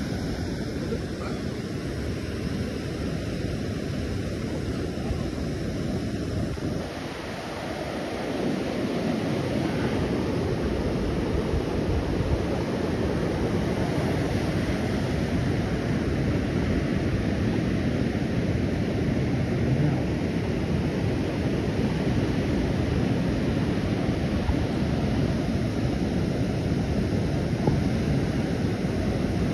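Ocean surf breaking and washing up a sandy beach, a steady rushing sound, with wind buffeting the microphone. The sound changes abruptly about seven seconds in and grows a little louder and deeper.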